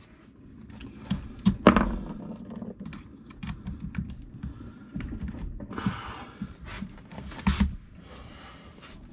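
Handling noise at a workbench: scattered clicks and knocks as a cordless drill is picked up and readied to spin out the differential case bolts, with a brief rustling hiss about six seconds in. The drill's motor is not running.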